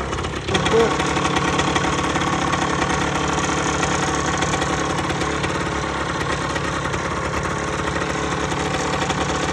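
Rieju RS 50 Matrix's small two-stroke engine running steadily at idle, freshly rebuilt with a new cylinder and piston.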